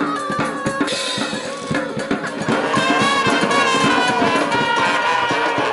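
Live brass band playing, with horns and sousaphones over a steady drumbeat.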